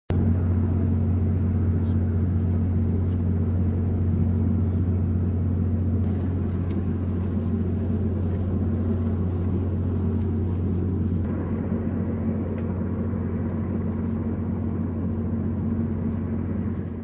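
Steady low engine rumble with a constant deep hum, shifting slightly in tone about eleven seconds in.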